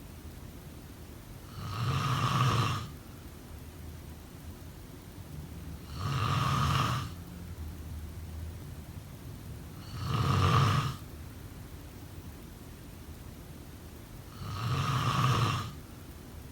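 A sleeper snoring: four snores at an even pace, about four seconds apart, each lasting about a second.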